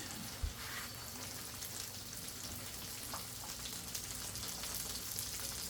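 Food sizzling steadily in a hot pan, an even hiss, with a soft low thump about half a second in.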